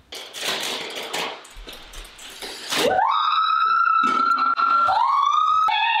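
Girls screaming in fright: after about three seconds of noisy scuffling, three long high-pitched screams follow, each gliding up and then held.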